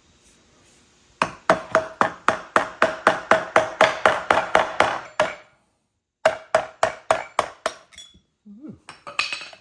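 Hammer tapping quickly on a screwdriver, metal on metal with a ringing note, to drive the old input seal out of a Bush Hog RZ60 gearbox. About twenty strikes at roughly five a second, a second's pause, then a shorter run of about six, and a scrape and a clink near the end.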